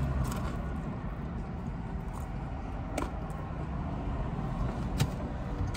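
Mouth sounds of chewing a bite of Chicago-style stuffed pizza crust, with a couple of sharp clicks, the loudest one near the end, over a steady low hum.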